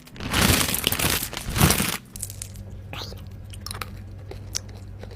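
Close-miked biting and chewing of sour candy, loud for about the first two seconds, then quieter scattered mouth clicks over a faint steady hum.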